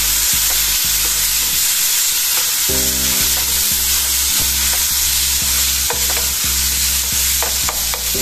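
Mushrooms and sliced white onion sizzling as they fry in a frying pan, stirred and scraped with a spatula, with scattered clicks of the spatula against the pan.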